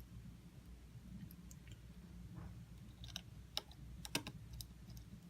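Faint, irregular small clicks and light taps of a metal connector bracket and small tools being handled and seated inside an opened iPhone 6s, the sharpest clicks about four seconds in.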